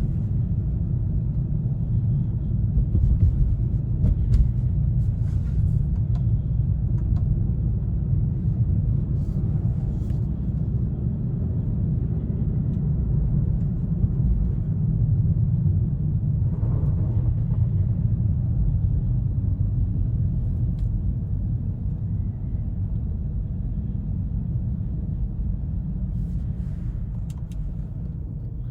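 2020 BMW M340i xDrive's turbocharged inline-six and tyres heard while driving: a steady low rumble of engine and road noise, easing slightly near the end, with a few faint ticks.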